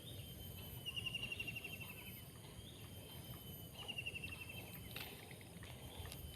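An animal's rapid, slightly falling trill, heard twice, over a steady high-pitched whine and a low background rumble.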